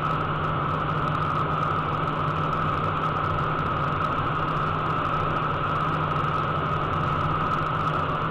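Steady in-flight cockpit noise of a Cessna Citation 501 jet: a rushing hiss of airflow with a constant high whine and low hum from its Pratt & Whitney JT15D turbofan engines.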